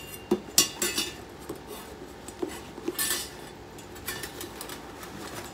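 Thin metal mousse rings clinking and clattering against each other as they are handled, with a burst of clinks in the first second and scattered ones later.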